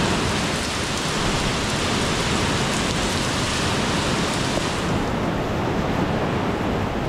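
Steady rain falling on a paved courtyard and garden, a dense even hiss. About five seconds in, the brightest, highest part of the hiss drops away and the rain sounds duller.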